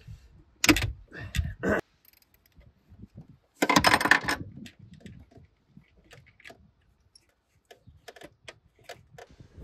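Metallic clicks and clinks of a hand ratchet and socket undoing a 13 mm nut on a car battery's terminal connector, with a dense run of clicks about four seconds in and lighter ticks after.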